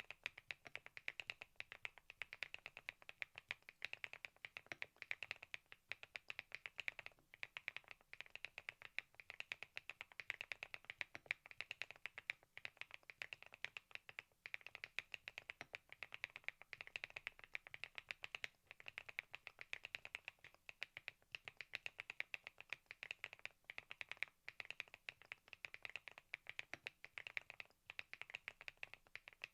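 Fast, continuous typing on the Thinkway TAUCHE.S 501, a full-aluminium 75% mechanical keyboard: a dense run of light key clacks, with brief pauses about 7 and 14 seconds in.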